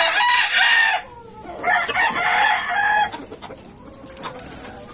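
Gamecock crowing: a long crow breaks off about a second in, and a second crow follows from about two to three seconds in, then a few light clicks.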